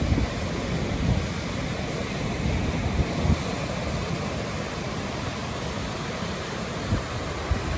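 Ocean surf washing in, with wind buffeting the microphone in a few short low thumps.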